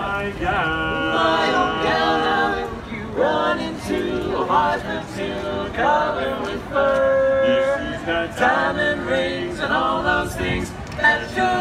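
Barbershop quartet of men singing a cappella in close four-part harmony, with a long held chord about seven seconds in.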